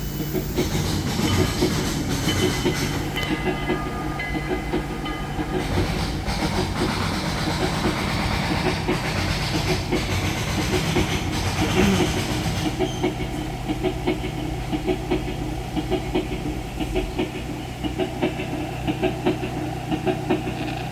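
Recorded steam-locomotive sounds played back through the exhibit's loudspeaker: a rhythmic wheel clickety-clack over a steady rumble, with hissing steam that dies away about twelve seconds in.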